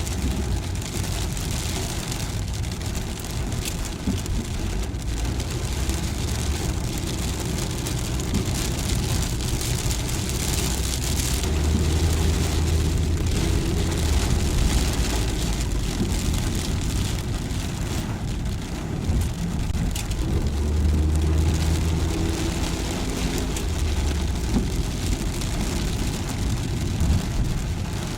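A car driving in rain: a steady low engine and road rumble under a hiss of rain, with scattered drops ticking. The engine note swells twice, about a third of the way in and again past two-thirds.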